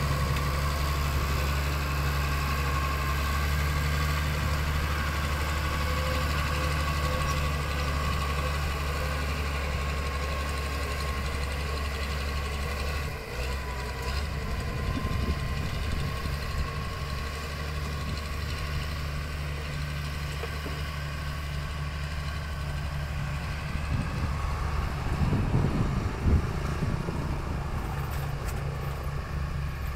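Wheel loader's diesel engine running steadily, with a brief dip about halfway through and a few louder thumps about three-quarters of the way in.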